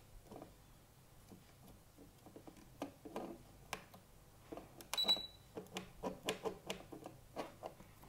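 Irregular plastic clicks and knocks from a toy RC drone's remote being handled and its buttons pressed, with one short high electronic beep about five seconds in.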